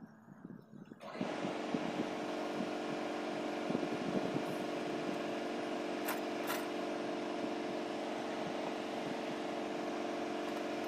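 A steady mechanical hum of a running motor that comes in abruptly about a second in and holds an even pitch, with a couple of light metallic tool clicks around the middle.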